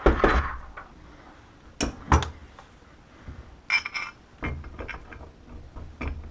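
Small metal parts being handled as a screwdriver bit is swapped from a number 2 to a number 3: a string of sharp clicks and taps, a few with a short metallic ring about four seconds in.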